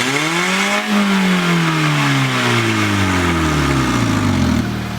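Honda Civic engine revved once through a big-tipped cannon-style exhaust: the pitch climbs quickly to a peak about a second in, then falls slowly back to idle over the next few seconds. The exhaust note is loud and bubbly.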